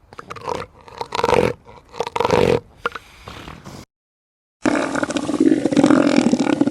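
Elephant seal vocalising: several short, gruff bellows, then a brief silence, then one longer, rough, pulsing bellow.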